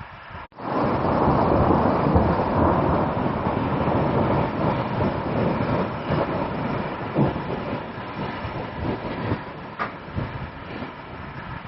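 A loud, deep, steady rushing noise that starts abruptly about half a second in and eases off gradually toward the end, with a few brief knocks in it.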